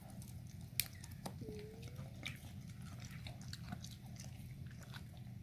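Pit bull chewing cucumber pieces slowly: faint, scattered crunching clicks, with one louder click about a second in.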